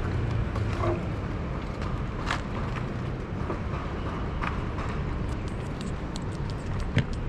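Street traffic ambience: a steady low rumble of vehicles, with a few light clicks and one sharp knock near the end.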